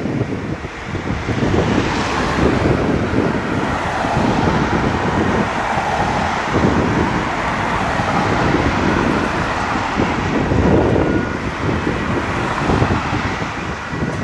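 Road vehicle noise, swelling and easing through the middle, with wind buffeting the microphone.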